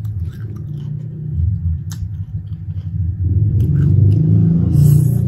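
Close-miked chewing and mouth sounds of eating fried chicken and spicy noodles, with small sharp clicks, growing louder about three seconds in. A short slurp of noodles near the end.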